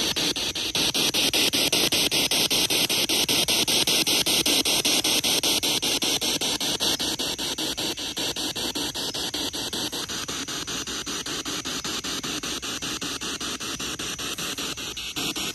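Spirit box scanning through radio stations: a steady hiss of static chopped by a fast, even rhythm of short dropouts as it sweeps from frequency to frequency.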